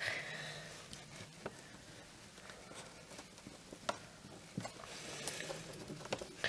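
Faint, scattered light clicks and taps of small parts being handled, with long quiet gaps between them.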